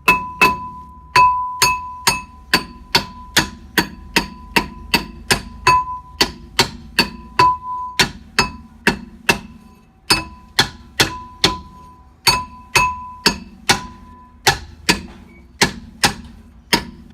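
A steel hammer striking a Lada Kalina's stuck rear brake drum over and over to knock it off the hub, about two to three blows a second with a short pause partway through. Each blow rings with a clear metallic tone from the drum.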